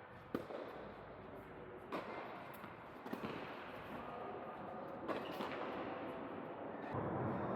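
Tennis ball struck by rackets in a rally: sharp pops about one to two seconds apart, ringing in an indoor hall. A low rumble comes up near the end.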